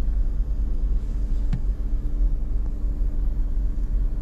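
Car driving on beach sand, heard from inside the cabin: a steady low engine and tyre rumble with a faint steady hum.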